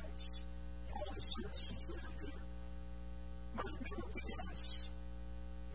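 Steady electrical mains hum, with two short stretches of a faint voice, about a second in and again past three and a half seconds.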